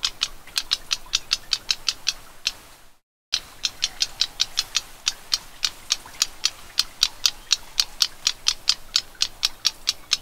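Black-browed reed warbler giving a rapid run of dry, ticking call notes, about five a second, broken once by a short gap about three seconds in.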